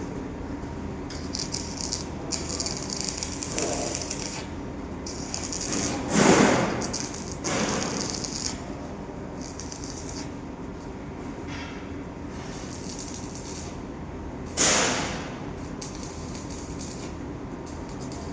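Arc welding crackling in stretches of a few seconds with short breaks, over a steady electrical hum. Two louder sudden noises come about six seconds in and near fifteen seconds in.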